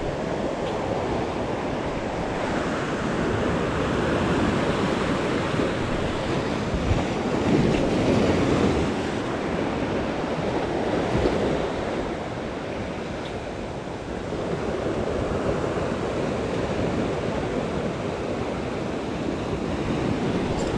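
Sea waves breaking and washing over shore rocks, a steady surf that swells and eases as the waves come in.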